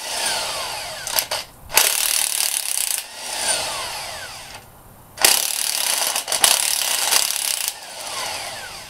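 A power tool backs out cylinder head bolts in several runs. Each run starts suddenly and trails off with a falling whine as the tool spins down.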